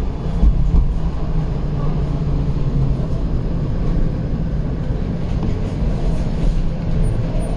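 Steady low rumble and hum of a TTC streetcar, heard from inside the car.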